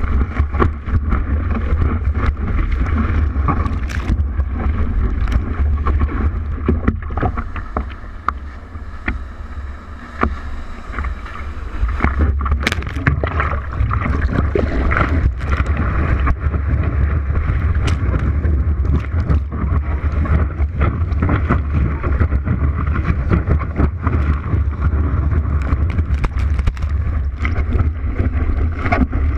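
Wind buffeting the microphone, with a deep steady rumble and a rushing noise; it eases off for a few seconds a quarter of the way in.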